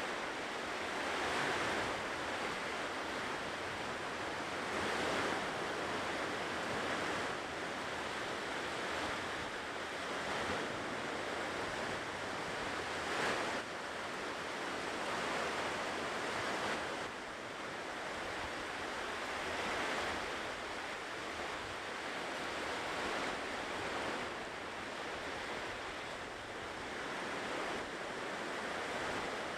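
Ocean waves breaking and washing on a shore, a continuous surf hiss that swells and eases every few seconds.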